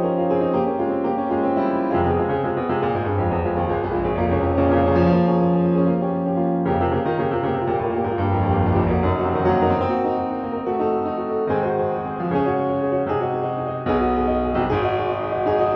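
Background piano music in a classical style, held chords and melody notes changing every second or so.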